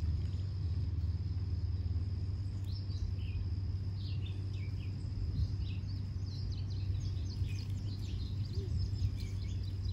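Outdoor ambience: a steady high insect tone with scattered bird chirps, over a steady low hum.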